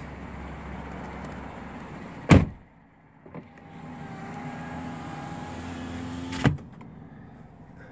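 A 2014 GMC Sierra's electric power window motor whining steadily for about three seconds and ending in a clunk as the glass reaches its stop. Before it there is a low engine hum from the idling 5.3-litre V8 and a single heavy thump a little after two seconds in.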